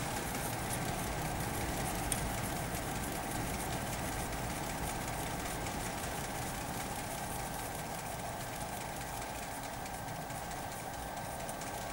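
Steady machine hum with a faint high whine that stays even throughout, and faint rubbing from a greased aluminium threaded holder being turned by hand.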